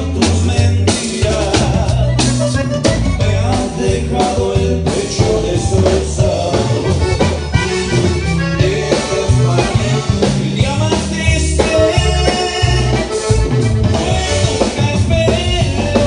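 Norteño band playing: a button accordion carries the melody over a strummed bajo sexto, electric bass and drum kit.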